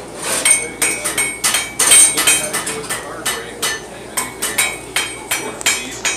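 Blacksmith's hammer striking iron on an anvil while forging, a steady run of blows about three a second, each with a metallic ring.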